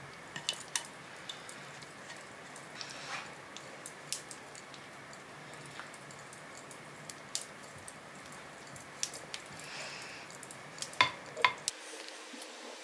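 Cooking sounds: light clinks and taps of utensils against dishes over a steady soft hiss, with two sharper clicks near the end.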